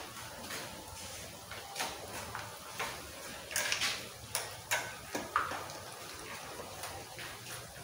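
Oil sizzling around black-eyed pea fritters (akara) frying in a pan: a steady hiss broken by scattered pops and crackles, over a low steady hum.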